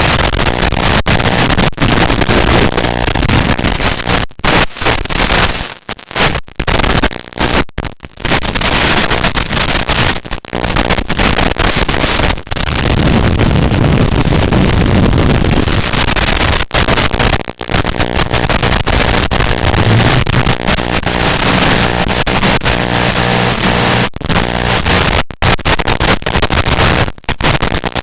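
Loud static hiss with a low buzz from an analog FPV video receiver's audio channel, which carries no microphone sound. It cuts out briefly many times, most often between about four and eight seconds in and again near the end.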